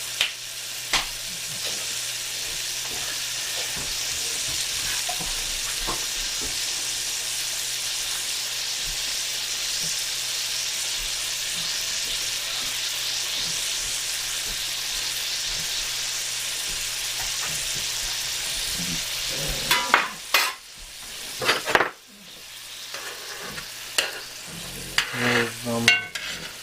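Ground beef and pork burger patties sizzling in a hot cast iron skillet, a steady frying hiss. A little after two-thirds of the way through the sizzle falls away and a few sharp knocks and clatters follow near the end.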